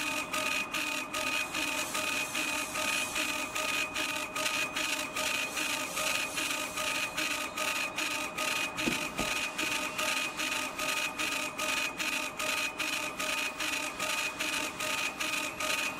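CO2 laser cutter running as its heads move back and forth: a steady mechanical whine with a regular pulse about three times a second.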